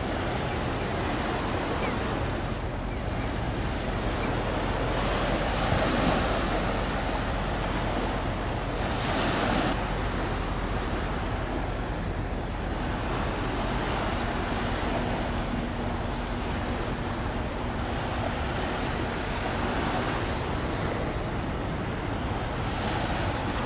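Steady wash of sea water against the shore, with wind blowing across the microphone; the wash swells briefly about nine seconds in.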